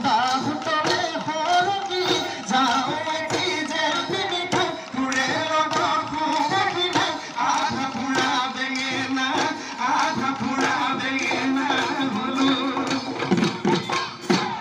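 Live Bihu music: several dhol drums beaten in a quick, steady rhythm, with singing over them.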